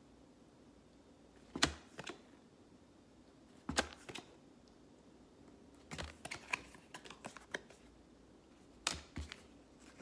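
Trading cards being handled and flipped through: scattered sharp clicks and taps, with a quick flurry of them about six seconds in.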